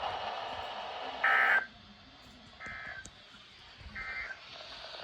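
Weather radio end-of-message data tones: three short buzzing bursts of digital SAME tone about a second apart, marking the end of the flash flood warning. Receiver hiss drops out after the first burst.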